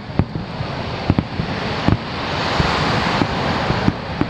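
Fireworks display: a rapid series of sharp bangs from bursting shells, roughly two a second, with a rushing hiss that swells through the middle and cuts off near the end.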